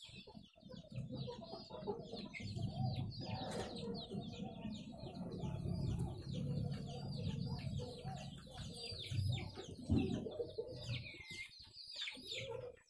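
Young chickens peeping and clucking: a dense run of short, high, falling peeps over a low rumble.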